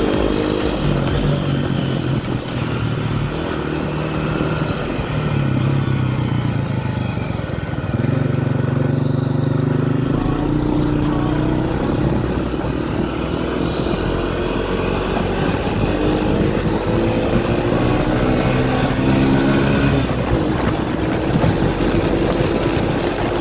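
Honda Dream 100's small single-cylinder four-stroke engine running under way, its note rising and falling with the throttle, stepping up about eight seconds in.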